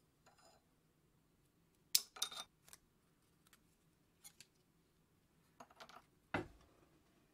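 Scattered light metallic clicks and clinks of small steel pieces and a steel rule being handled and set against a bench vise, with a heavier knock a little over six seconds in.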